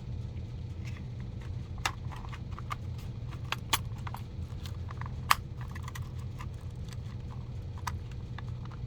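Scattered small clicks and taps from handling a model locomotive's plastic shell and chassis, with a few sharper clicks, over a steady low hum.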